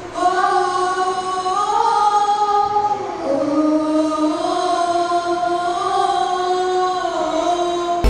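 A boy and a woman singing a slow melody together into handheld microphones, in long held notes that glide from one pitch to the next.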